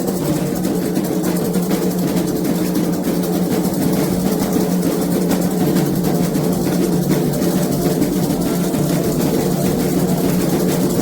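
Candomblé ritual drumming on atabaque hand drums: a dense, continuous rhythm of rapid strokes, steady in loudness.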